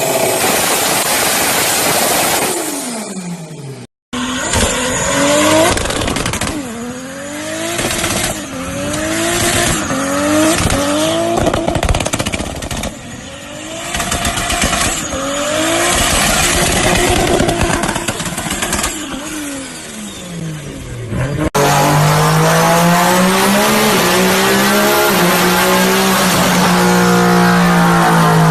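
Tuned turbocharged car engines revved hard in repeated short blips, the pitch climbing and dropping about every two seconds, across several cut-together clips. Near the end comes a steadier, slowly falling engine note.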